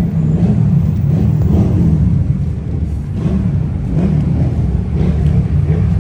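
Vehicle engine running with a steady deep rumble.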